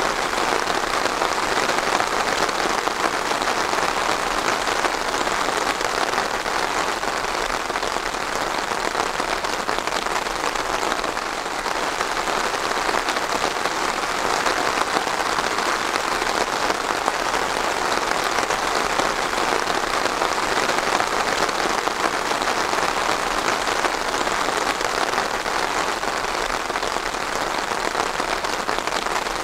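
Steady rain falling and pattering on a surface.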